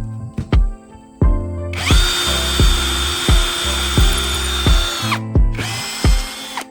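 An electric drill runs in bursts over background music with a steady beat. Its motor spins up about two seconds in, holds an even whine for about three seconds and winds down, then spins up again briefly near the end.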